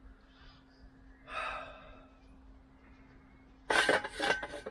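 A man's breathy exhale, like a sigh of effort, about a second in, then near the end a loud burst of knocks and clattering lasting under a second. A faint steady hum runs underneath.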